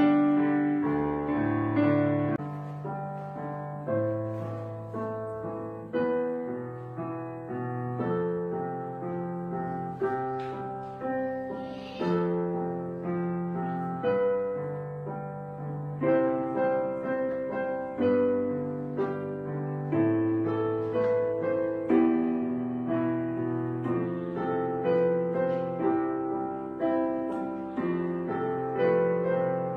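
Background piano music: slow, gentle chords and melody, with notes struck about once a second and left to ring and fade.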